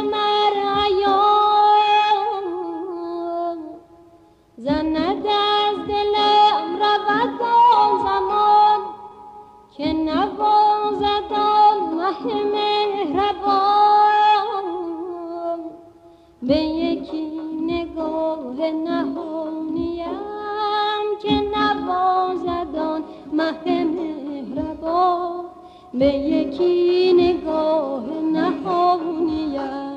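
Persian classical music in dastgah Mahur: ornamented melodic phrases of about five seconds each, broken by short pauses.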